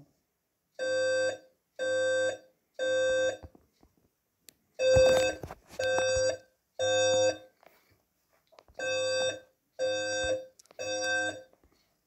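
A Code-3 temporal fire alarm evacuation tone at 520 Hz: three groups of three short beeps, each about half a second long, sounding between the 'fire alarm reported in the building' voice announcements. A brief rustle or knock comes over the fourth beep about five seconds in.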